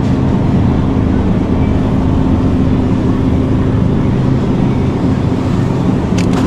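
Steady low mechanical hum with a few constant tones and no change in level. Two short clicks come near the end.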